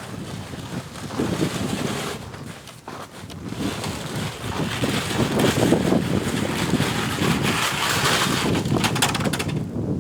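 Wind buffeting the microphone, an uneven rumbling noise that grows stronger about halfway through.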